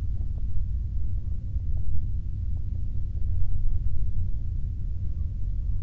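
A low, uneven rumble with a faint steady hum above it.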